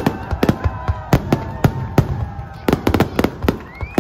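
Aerial fireworks going off in quick succession, several sharp bangs a second, with whistling tones between them and a rising whistle near the end.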